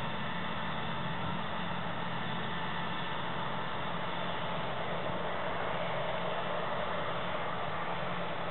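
Tractor diesel engine running steadily at working speed as it drives through a dense cover crop, a constant hum under a rushing noise.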